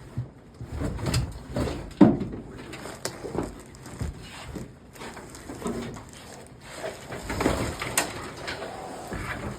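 Soaked original carpet being pulled and torn out of a Chevy S10 pickup's cab floor: irregular scraping, rustling and knocks, with a sharp knock about two seconds in.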